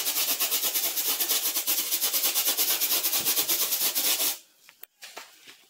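Rubber balloon rubbed rapidly back and forth on a child's hair, a scratchy rubbing in fast, even strokes that stops about four seconds in. The friction is charging the balloon with static electricity.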